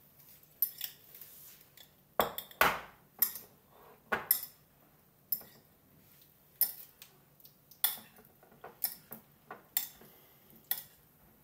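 Diced potato, onion and egg mixture being stirred in a ceramic bowl, with sharp clinks against the bowl about once a second, the loudest few about two seconds in.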